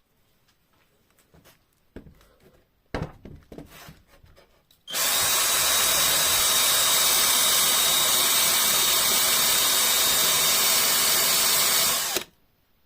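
A handheld power tool, drill-like, starts up about five seconds in, runs steadily at constant speed with a faint whine for about seven seconds, and stops abruptly. Before it starts there are a few clicks and knocks of handling.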